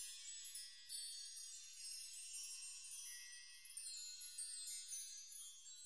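Soft, high tinkling chimes in the manner of a wind chime, many ringing tones overlapping, beginning to fade near the end.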